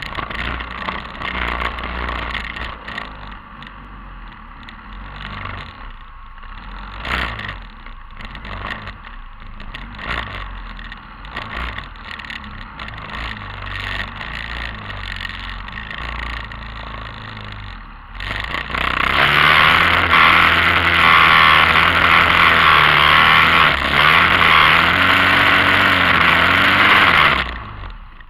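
TGB 550 quad's engine running at low revs over a rough mud track, with a few knocks from the ride. About 19 seconds in it revs up hard under load, with a loud rush of splashing as the quad ploughs through a water-filled rut. It drops back near the end.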